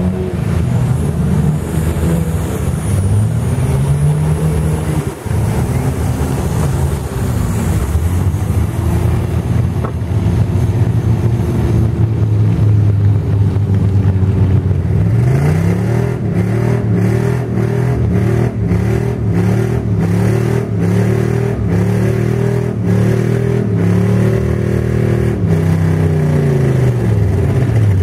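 Off-road vehicle engines revving up and down over and over in deep mud: the Argo 8x8 amphibious ATV's liquid-cooled Kohler V-twin, with an SUV's engine passing close by. From about halfway through, a steady run of sharp ticks, about two a second, sounds along with the revving.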